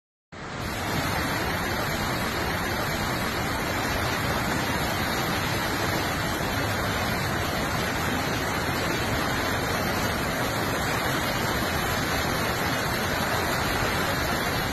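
Flash-flood water rushing down a street, a steady, loud rush that starts abruptly just after the beginning.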